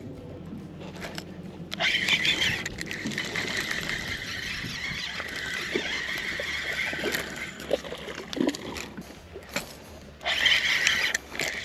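A spinning fishing reel being wound steadily, with a whirring that starts about two seconds in, pauses briefly near the end and picks up again. Splashes of water from a hooked fish are mixed in.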